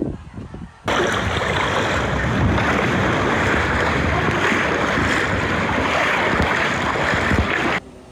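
Loud rushing and splashing of sea water close to the microphone, with waves and wind, from a camera held at the water's surface in a shallow rock pool. It cuts in suddenly about a second in and cuts off near the end.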